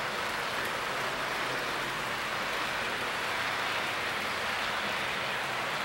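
HO-scale model container train of Koki flat wagons rolling past on the track: a steady rushing noise of metal wheels on the rails.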